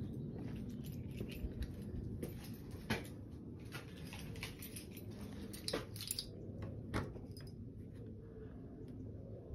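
Footsteps and handling noise, with a few sharp clicks and taps spread through, as a hand goes to the black iron thumb latch of a wooden church door.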